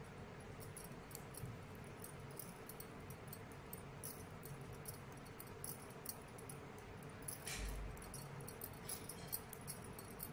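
Faint, quick clicking and rubbing of knitting needles as yarn is worked. There is one dull bump about seven and a half seconds in.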